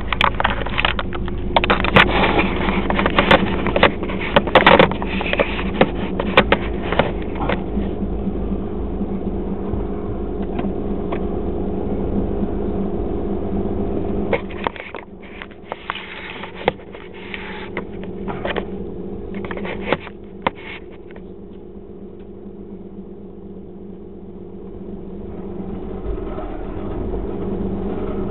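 Car engine and road noise heard from inside the cabin, a steady hum with scattered knocks and rattles. It gets quieter about halfway through and builds up again near the end.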